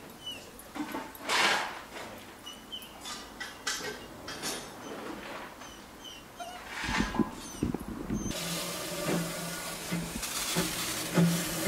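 Narrow gauge Hunslet saddle-tank steam locomotive starting away from a platform: short hisses of steam at intervals, then a steady hiss of steam sets in about eight seconds in, with a regular low beat under it near the end.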